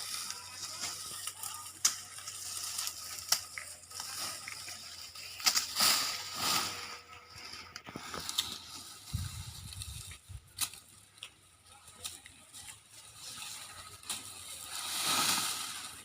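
Dry corn plants rustling and crunching, with many scattered sharp cracks and snaps during corn harvesting. A brief low rumble about nine seconds in.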